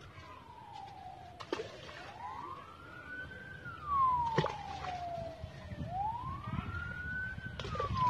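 A siren wailing, its pitch rising and falling in slow sweeps about four seconds apart, with a few sharp clicks over it.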